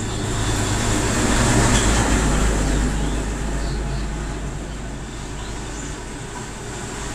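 Steady low rumble with a hiss of background noise, a little louder about one to three seconds in.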